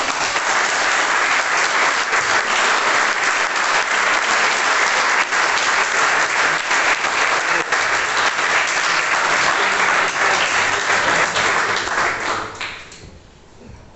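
Applause, steady clapping that dies away about thirteen seconds in.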